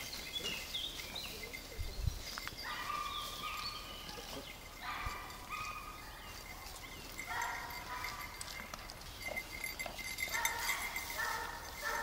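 A hound on a scent trail giving repeated drawn-out whining cries, each about half a second to a second long, five or six of them with short gaps, coming closer together near the end. A few short high bird chirps near the start.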